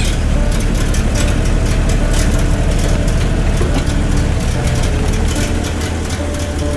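Engine of a vintage 4x4 running, heard from inside the cabin: a steady low rumble.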